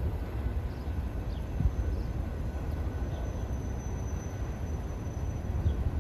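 Distant mixed freight train rolling through a grade crossing: a steady low rumble.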